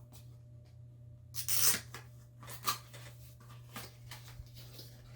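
Packaging being handled and torn open: a loud rustling tear about a second and a half in, a shorter one near the middle, and a few light handling clicks. A steady low hum runs underneath.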